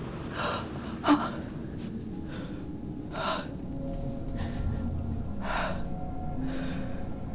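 A woman gasping for breath: about five sharp, ragged intakes of air, the sharpest and loudest about a second in, over a low steady rumble.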